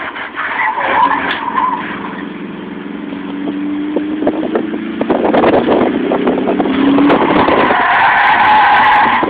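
Heard from inside the cabin: a second-generation Dodge Neon's four-cylinder engine pulls hard, its note climbing under acceleration during an autocross run, with rattling in the cabin. For the last second and a half its BFGoodrich KDW2 tyres squeal loudly through a corner.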